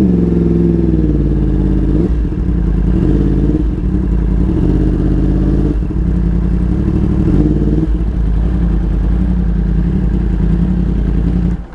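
Yamaha YZF-R1's 998 cc crossplane inline-four engine running at low road speed, its pitch rising and falling with small throttle changes as the bike rolls to a stop. The engine sound cuts off suddenly near the end.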